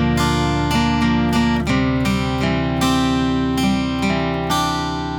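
Acoustic guitar chords strummed about twice a second in a song's instrumental ending. The last strum, near the end, is left ringing and begins to fade.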